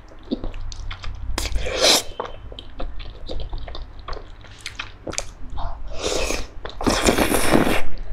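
A person slurping and chewing wide, sauce-coated noodles in repeated wet sucking bursts. The longest and loudest slurp comes near the end.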